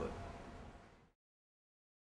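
A man's voice finishes a word, then faint room tone fades away into complete silence for about the last second, a dead gap at an edit.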